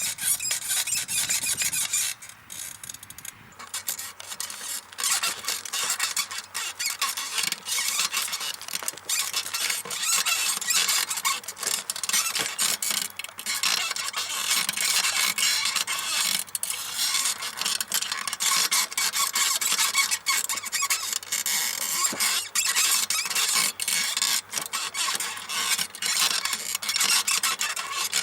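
Small rebuilt Mifa bicycle saddle squeaking loudly in rapid, repeated squeaks as a rider's weight rocks on it, with a quieter lull about two seconds in.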